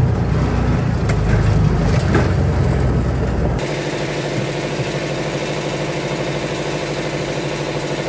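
An engine running steadily. For the first three and a half seconds it sits under a heavy low rumble, then the sound cuts abruptly to an even, steady engine hum.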